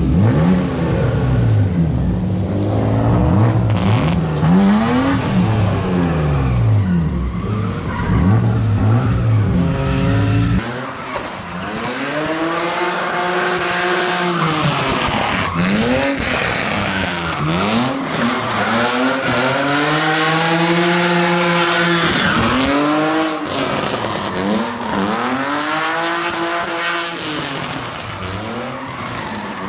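Drift cars running hard: engines revving, with tyres squealing through the slides. For about the first ten seconds the engine note is lower and steadier; from about eleven seconds in, the revs rise and fall again and again.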